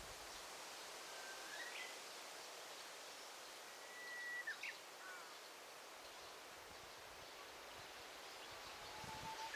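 Quiet daytime forest ambience: a steady soft hiss of leaves and air, with a few thin bird whistles. The clearest is a long, level whistle about four seconds in that ends in a quick sweep, and a lower whistle comes near the end.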